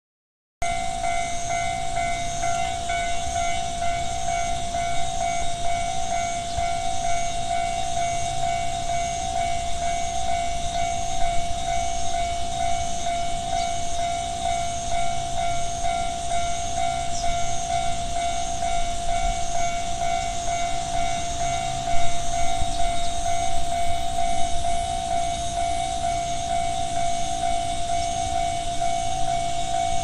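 Japanese railway level-crossing warning bell ringing steadily in a regular repeating pattern. Something briefly louder joins about two-thirds of the way through.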